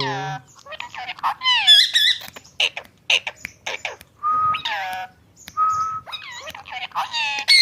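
Indian ringneck parrot calling in a rapid run of squawks, chirps and gliding whistled notes, with two short steady whistles about four and five and a half seconds in.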